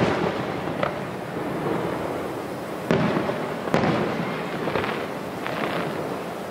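Aerial firework shells bursting overhead: two sharp booms about three seconds in, less than a second apart, then weaker pops. Each blast is trailed by a long rolling echo.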